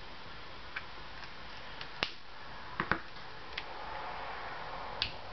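Copic alcohol markers being handled: a handful of short, sharp plastic clicks, two in quick succession near the middle, as marker caps are snapped off and on and the markers tap against the table, with a soft rubbing sound around the fourth second.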